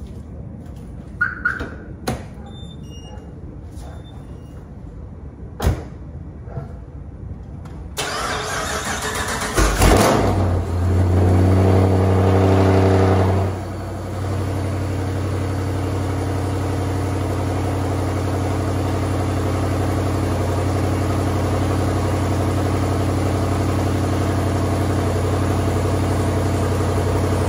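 A few sharp clicks, then the built 5.7-litre Hemi V8 is cranked and fires about ten seconds in: a first start on fresh oil. It runs at a fast idle for a few seconds, then settles into a steady idle.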